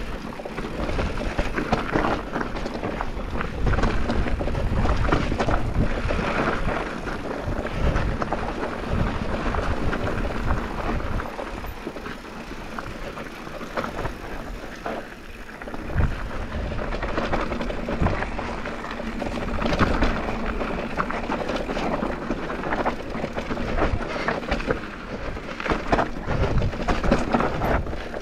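Focus SAM2 enduro mountain bike descending a singletrack trail: tyres rolling over dirt and stones, with the bike rattling and knocking over bumps. Wind rumbles on the microphone throughout.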